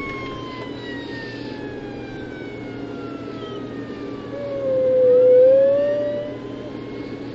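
A dog howls once, one long howl that dips and then rises in pitch, from about four and a half seconds in to just past six seconds; it is the loudest sound. It answers an emergency vehicle siren whose wail slowly falls in pitch and then starts rising again. The steady engine and road hum of the car's cabin runs underneath.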